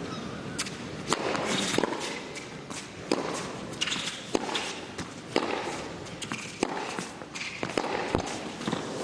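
Tennis rally: racket strings striking the ball back and forth about once a second, with ball bounces and players' footsteps on the court.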